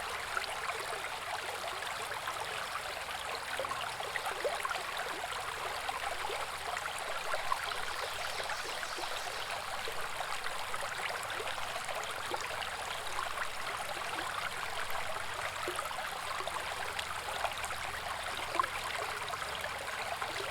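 Small woodland brook babbling over rocks: a steady rush of water full of quick little gurgles and splashes.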